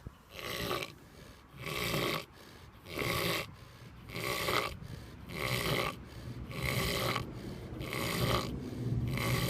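A pig snoring steadily, a rasping snore with each breath, about eight in a row at a slow, even rhythm.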